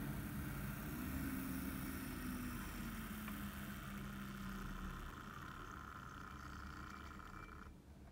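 OO gauge model train, a Class 08 shunter with a coach, running along the track: a steady motor whirr and wheel rumble that slowly fades, then cuts off sharply near the end.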